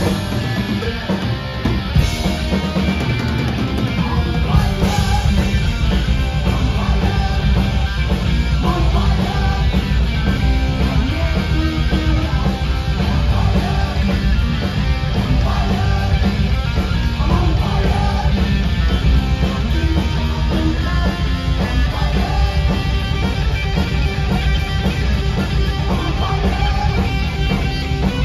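A heavy metal band playing live and loud without a break: electric guitar, bass guitar and drum kit.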